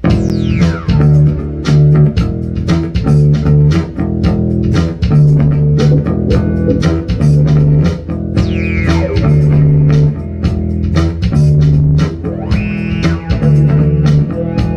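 Live band playing an instrumental groove: a repeating electric bass riff with guitar, keyboards and a steady beat. The full band comes in at once at the start, with falling swoops at the start and again about eight and a half seconds in.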